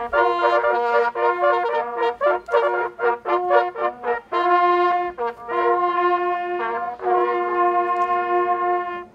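A group of hunting horns playing a fanfare in harmony: quick short notes at first, then long held chords, breaking off just before the end.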